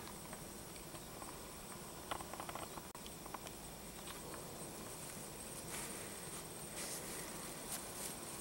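Faint steady hum of honey bees flying in and out of the hive entrances, with a few light clicks and rustles scattered through it.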